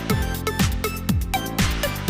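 Electronic dance music with a steady kick drum beat, about two beats a second, over fast hi-hats and short synth notes.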